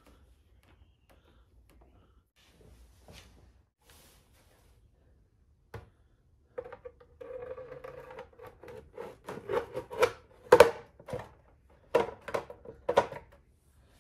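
Plastic front fender of a Yamaha R1 being slid and pressed into place between the fork legs: faint small clicks at first, then a scrape about halfway through and a run of sharp plastic knocks and clicks, loudest near the end.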